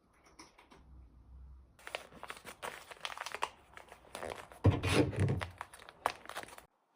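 Packaging being torn open and crinkled by hand: irregular rustling and crackling that builds about two seconds in, is loudest around five seconds in with a heavier handling noise, and stops abruptly near the end.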